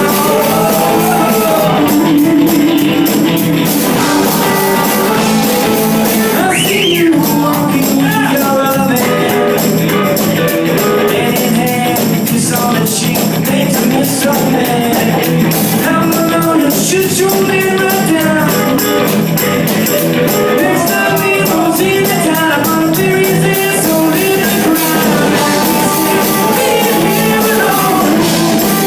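A rock song playing, with guitar and a singing voice.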